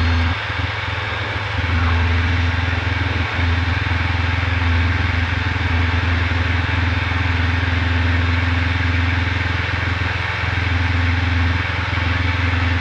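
Diamond DA20 light aircraft's four-cylinder piston engine and propeller running steadily at full takeoff power, heard inside the cockpit as the plane rotates and lifts off the runway.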